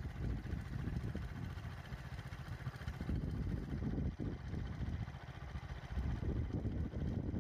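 Low, rough rumble of a vehicle engine running.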